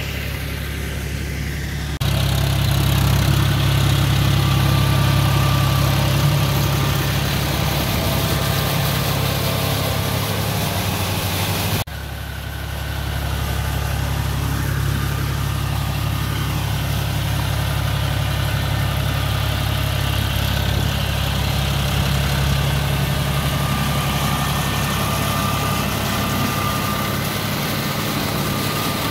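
John Deere 5045 D tractor's three-cylinder diesel engine running steadily under load as it pulls a rotavator through flooded paddy mud. The engine becomes louder about two seconds in and drops out briefly near the middle.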